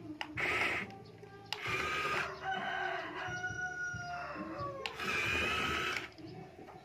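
Toy remote-control dump truck's small electric motor whirring in two short bursts as the bed tips up and comes back down. In between, a bird gives a long call in the background.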